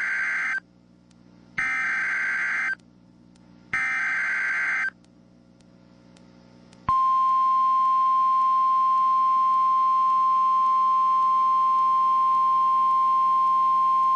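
Emergency Alert System SAME header: the end of one burst and then two more short bursts of screechy digital data tones, each about a second long. About seven seconds in, a steady single-pitch alarm tone starts: the NOAA Weather Radio 1050 Hz warning alarm that announces a warning.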